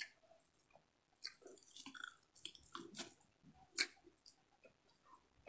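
Close-up chewing of frog meat and rice: faint, scattered wet mouth clicks and smacks, with one sharper click a little before four seconds in.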